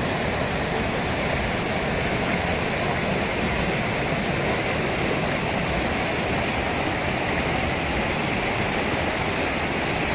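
Waterfall: a steady rush of falling water, an even hiss with no breaks.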